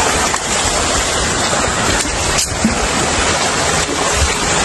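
Steady rushing wind buffeting a phone's microphone, mixed with the wash of surf.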